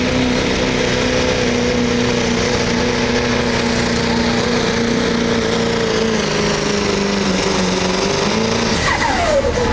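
Pulling truck's engine running hard at high, steady revs, its pitch easing down slightly, then the revs falling off sharply near the end.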